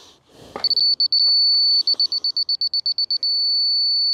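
Laser level receiver on a grade rod sounding a high electronic tone: a few beeps and a solid tone, then a run of fast beeps, about ten a second, for well over a second, then a solid tone again that cuts off abruptly near the end. The solid tone is the receiver's on-grade signal as the rod is read on top of the drain pipe; the fast beeps show it slightly off grade.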